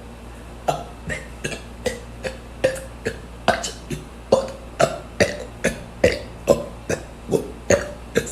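A man burping over and over in quick succession: short burps about two a second, starting about a second in.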